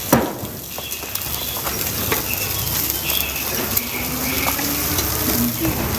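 Hot oil sizzling steadily in a frying pan of flatbreads, with a short knock right at the start.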